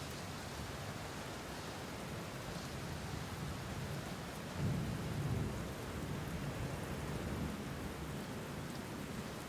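Steady rain with a low roll of thunder that swells sharply about halfway through, then fades slowly.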